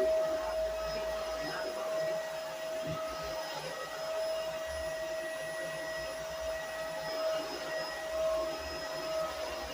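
Vacuum cleaner running on a carpeted floor, a steady motor whine that briefly dips about three and a half seconds in.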